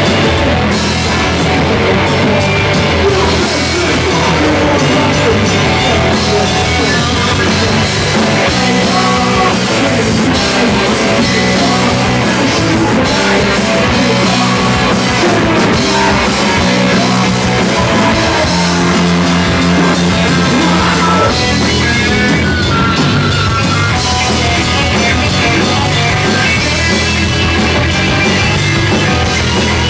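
Rock band playing live and loud, with drum kit and electric guitar.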